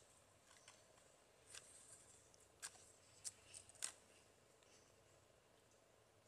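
Near silence with a faint outdoor background, broken by a few short, sharp faint clicks in the middle.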